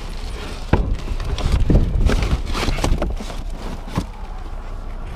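Rummaging through junk in a dumpster: cardboard and debris scraping and shifting, with several knocks, the busiest stretch in the middle.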